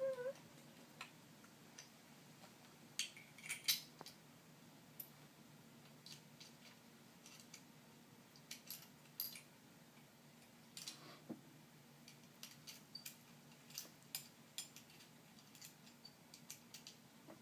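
Small metal parts of a steering-wheel hub adapter kit being handled during assembly: irregular sharp clicks and light clinks of screws, nuts and fittings against the wheel and hub, with a few louder knocks about three to four seconds in and again near eleven seconds in.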